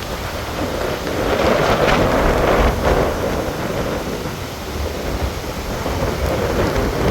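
Hurricane wind and rain noise with surf, a low rumble underneath and a stronger gust swelling about a second in and easing off a couple of seconds later.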